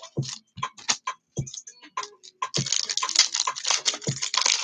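Trading cards and thin foil pack wrappers being handled, giving quick clicks and crinkling. A dense run of rustling fills the second half.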